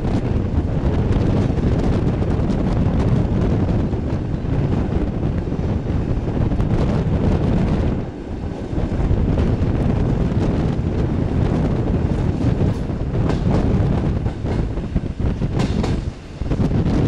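Running noise of an EN57 electric multiple unit, heard from inside the car: a steady rumble of wheels on rail mixed with wind. It drops briefly twice, about halfway through and near the end.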